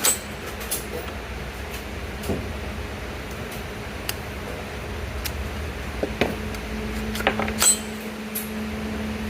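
A steady low hum, with a tone that grows stronger about two-thirds of the way through. Over it come scattered short clicks and knocks of gear being handled: one at the start, one about four seconds in, and a small cluster near the end.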